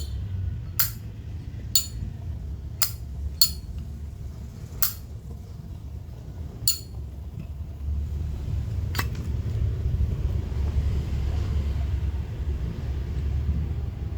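Sharp metallic clicks and clinks, about eight of them, irregularly spaced over the first nine seconds, as brass Zippo lighters are handled. Under them runs a steady low rumble like distant traffic, which grows louder from about eight seconds in.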